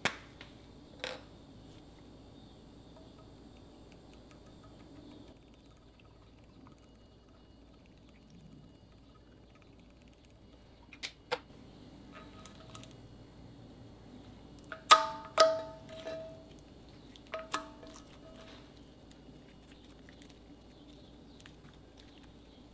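White slime being handled, pressed and poked by fingers. It is mostly quiet, with a few scattered sharp pops and clicks, the loudest a cluster about fifteen to eighteen seconds in, some with a short ringing tone.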